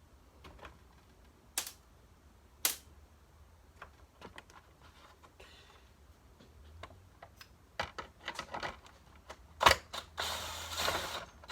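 Scattered clicks and knocks of hard plastic parts and screws being handled while an upright vacuum cleaner is taken apart. The clicks come thicker near the end, followed by about a second of rustling, scraping noise.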